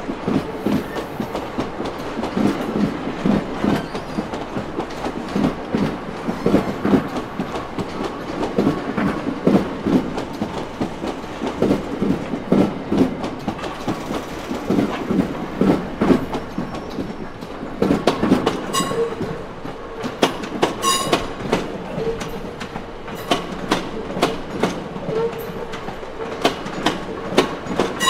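Train carriages rolling past on the track, wheels clicking and clacking over rail joints and points in a repeating rhythm. A couple of brief high-pitched wheel squeals come about two-thirds of the way through.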